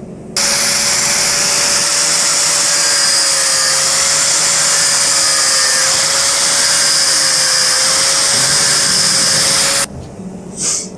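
Angle grinder cutting slots into a forged key bit to shape its teeth: a loud, steady grinding hiss with a steady motor whine through it. It starts abruptly just after the beginning and cuts off about a second before the end.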